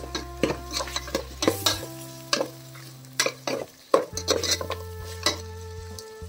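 Raw chicken pieces being stirred into a wet masala in an aluminium pot, with irregular scrapes and clinks of a steel spoon against the pot.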